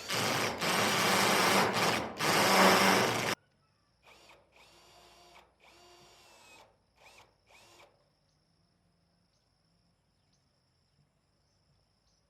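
Power tool running in bursts: one loud stretch of about three seconds with brief breaks, then several shorter, quieter bursts.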